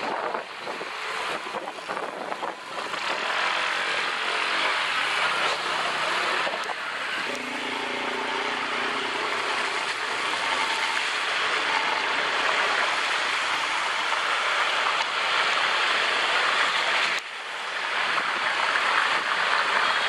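Honda motor scooter riding through rain and standing floodwater on the road: a steady rushing noise of tyres spraying water, with wind on the microphone. The rush dips sharply for a moment about 17 seconds in.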